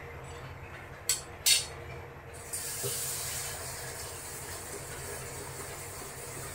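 Large pot of milk and rice cooking on a stove: a steady low hum, two short sharp bursts about a second in, then a steady hiss that sets in partway through.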